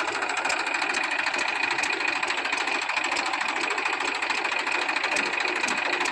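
Tractor diesel engine running steadily, with a fast, even pulsing beat.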